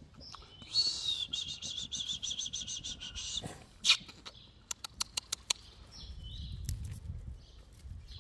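A bird singing: a high, rapid pulsing trill lasting about two and a half seconds, starting about a second in, with short single chirps later. A loud sharp click comes about halfway through, followed by a quick run of smaller clicks.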